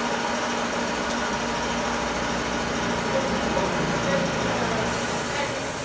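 A steady machine hum with a constant low drone and background noise.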